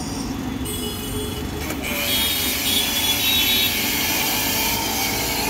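3 HP BTALI BT 1800 HPW pressure washer running. About two seconds in, the gun fitted with its foam bottle opens and a loud, steady hiss of spray comes in over the machine's steady run.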